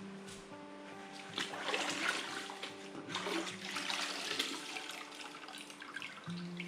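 Background music, with water splashing and trickling over it for a few seconds through the middle.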